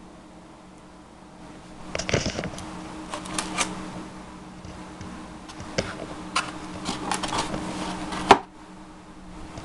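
Close handling noise: rustling with scattered light clicks and taps as a foam RC model airplane is handled, then a sharper knock near the end. A steady low hum runs underneath.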